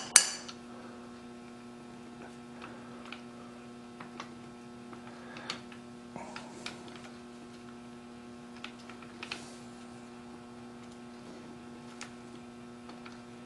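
A steady electrical hum, with faint, scattered metallic clicks and taps from a wrench and steel fixture parts being handled. A single sharp clank right at the start is the loudest sound.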